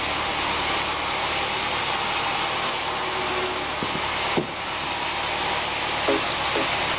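Sawmill band saw and its machinery running with a steady, even noise. A short knock comes about four and a half seconds in.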